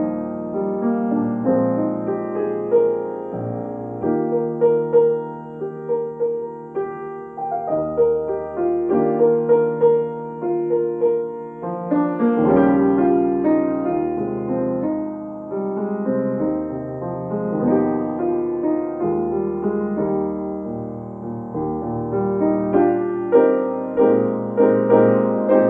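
Solo grand piano playing a contemporary worship-song arrangement in full chords under a melody line.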